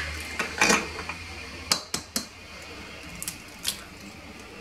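Eggs being cracked against a stainless steel mixing bowl and broken into it: a handful of separate sharp taps and clicks of shell on metal.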